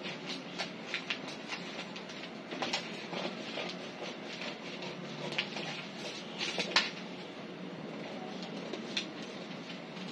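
Paper pattern pieces being handled and folded on a cutting mat: scattered rustles and taps over a steady background hum, with the sharpest snap of paper a little past two-thirds of the way through.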